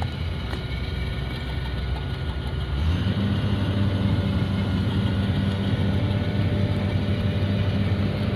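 An engine or motor running steadily with a low, even hum, which changes and grows a little louder about three seconds in.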